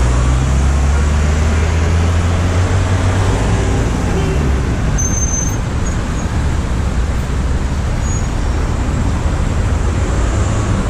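Taxi driving through city traffic: a steady low engine hum, strongest in the first few seconds and then easing, over continuous tyre and road noise from the surrounding cars and minibuses.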